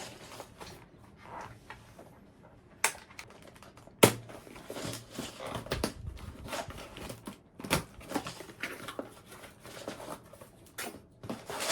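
Plastic keycaps and their packaging being handled: irregular clicks, clatter and rustling, with two sharp knocks about three and four seconds in.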